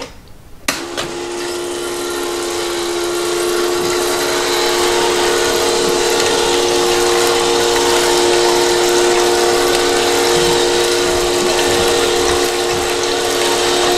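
A click about a second in, then an automatic spiral gold panning machine starts up and runs. It gives a steady two-note motor and pump hum over the rush of water spraying onto the spiral pan and draining into the tub, building over the first couple of seconds and then holding even.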